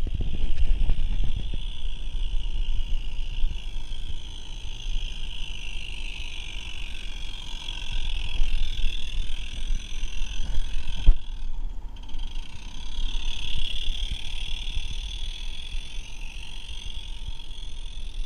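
Low rumble and clatter of small wheels rolling over garden-railway track, heard from on board the moving train, under a steady high hiss. A single sharp click about eleven seconds in.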